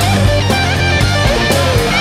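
Rock music with electric guitar and drums, loud and steady.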